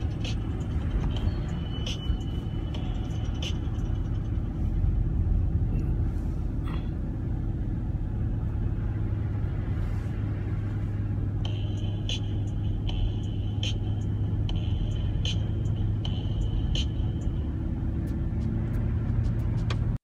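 Steady in-car road noise: the car's engine and tyres running on wet pavement, heard from inside the cabin as a low, even rumble. A light ticking about once a second comes in during the second half.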